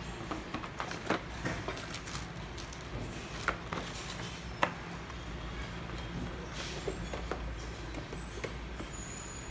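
Cardboard packaging being handled: the inner cardboard tray lifted out of a box and the box set down on a table, with scattered knocks, taps and scraping, the sharpest about a second in and again around three and a half and four and a half seconds in.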